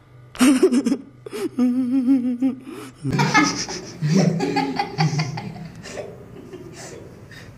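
Two boys laughing, breaking out about three seconds in and trailing off near the end. Before it, a short inserted comedy film clip: a man's voice with a quavering, wobbling pitch.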